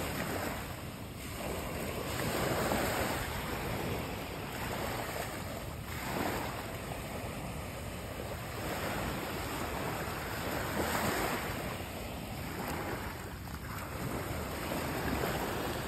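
Small waves washing in over a weedy, rocky shoreline, the wash swelling and fading every two to three seconds.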